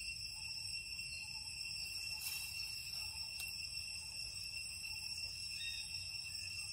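Steady chorus of insects in the forest: continuous high-pitched shrilling in several unbroken tones, over a low background rumble.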